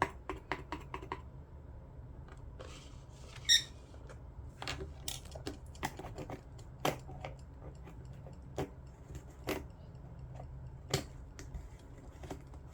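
Scattered light clicks and taps of a spoon and small kit containers being handled, with a quick run of clicks in the first second and a short ringing clink about three and a half seconds in, over a steady low hum.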